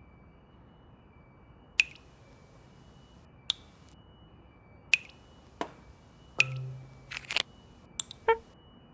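Cartoon sound effects: a scattered series of sharp, short clicks and taps, about eight of them, with a brief low hum about six and a half seconds in, over a faint steady high tone.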